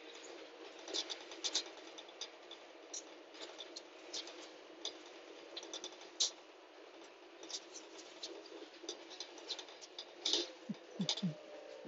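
Steady hiss inside a moving vehicle, with frequent light, irregular clicks and rattles. A cluster of louder clicks and a few dull thumps comes a little after ten seconds in.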